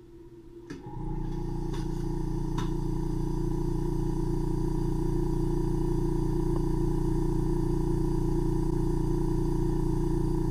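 Ear microsuction pump switching on about a second in and then running steadily, a constant hum ready to suck out impacted ear wax.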